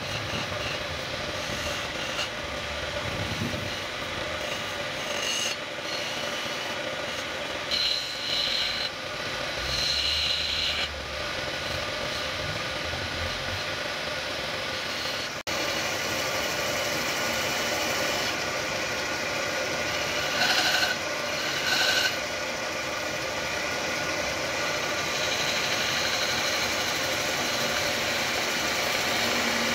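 Wood lathe motor running steadily while a hand chisel scrapes the spinning wood, with a few short louder scraping cuts.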